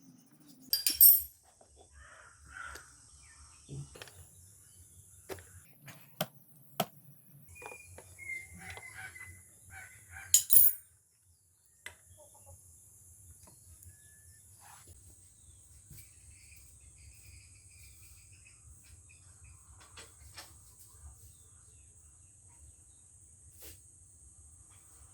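Scattered clicks and knocks of hand work on a bicycle, with two loud knocks about a second in and about ten seconds in, and only a few light clicks from about twelve seconds on.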